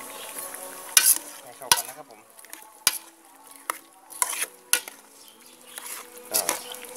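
Metal spoon stirring and scraping in a metal cooking pot, mixing chunks of wax gourd and frog meat into coconut curry. About eight irregular clinks and knocks against the pot sides, the loudest about a second in.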